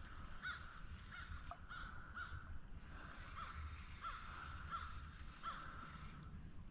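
A bird calling over and over outdoors: short calls that rise and fall in pitch, coming about one or two a second, with a low steady rumble underneath.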